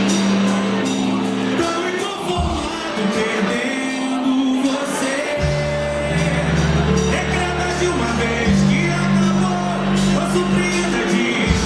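A song played by a band with a singer, over long-held bass notes that change pitch every few seconds.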